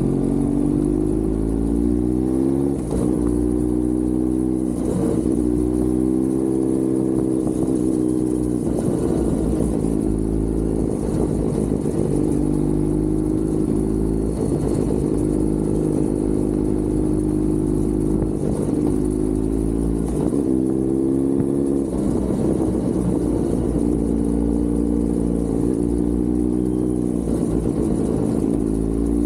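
Kawasaki Z900 inline-four engine and exhaust on the move, its pitch climbing under acceleration and dropping back at each upshift several times, with stretches of steady cruising between.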